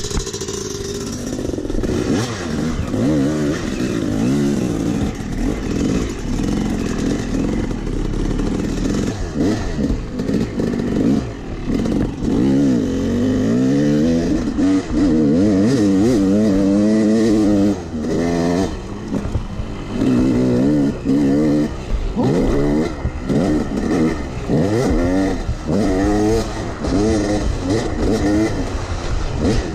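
Yamaha YZ250X two-stroke dirt bike engine under way, heard from the rider's seat, revving up and falling back again and again with the throttle and gear changes. It holds high revs for a few seconds around the middle, then rises and drops in quick, short blips toward the end.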